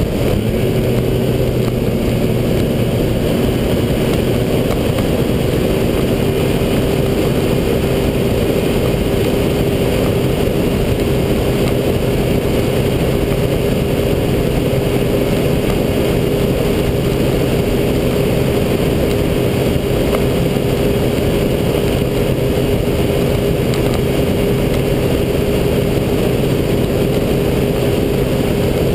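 Small open speedboat's engine running steadily at cruising speed, holding one even pitch, heard from on board with rushing wind and water noise around it.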